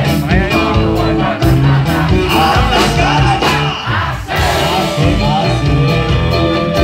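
Live band playing a song through an outdoor PA system, with drums and guitar and regular drum hits.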